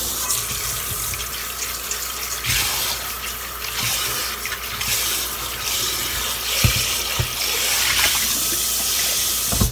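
Kitchen tap running into a stainless steel bowl of strawberries in a steel sink, the water splashing as hands swirl and rinse the fruit, with a few light knocks.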